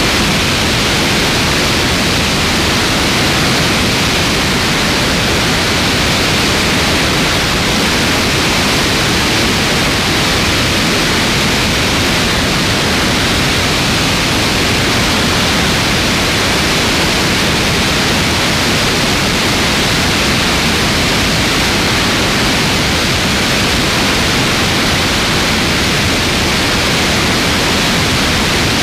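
Steady, loud rush of wind over a camera mounted on the wing of a light aircraft in flight, with no engine tone standing out.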